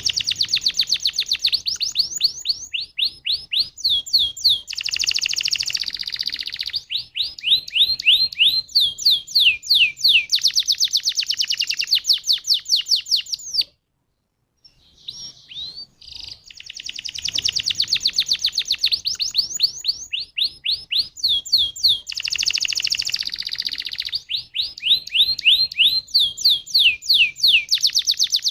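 Domestic canary singing long, fast rolling trills of rapidly repeated high, down-slurred notes, switching between trill types every second or two. About halfway through, the song breaks off in a brief silence, then the same sequence of trills plays again.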